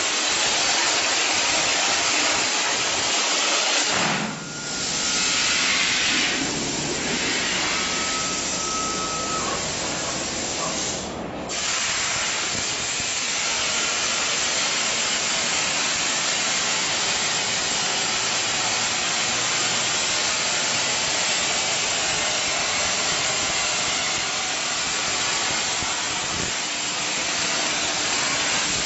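A 105 A Hypertherm plasma torch on a CNC plasma table cutting mild steel plate: the steady, loud hiss of the plasma arc and its air jet. It breaks off briefly twice, about four and eleven seconds in.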